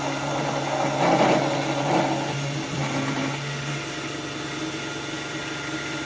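Cheap 775 DC motor spindle on a belt drive running a 10 mm end mill through metal, with a steady motor whine under the cutting noise. The cutting gets louder between about one and two seconds in.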